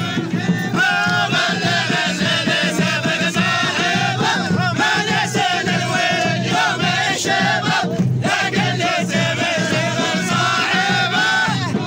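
A group of men chanting a traditional Omani song together, loud and in unison, over a steady drum beat.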